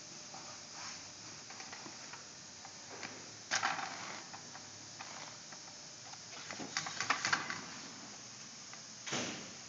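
Workshop handling of an awning roller tube and its fabric: a brief scraping rustle about three and a half seconds in, a quick rattle of clicks around seven seconds, and another short rustle near the end, over a low background hiss.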